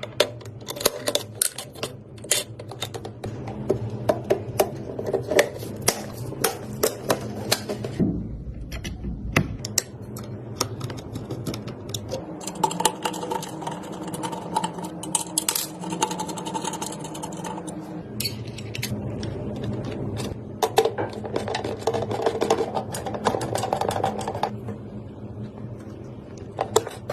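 Many small sharp clicks, taps and clacks of computer parts being handled and fitted into place during a PC build, over steady background music.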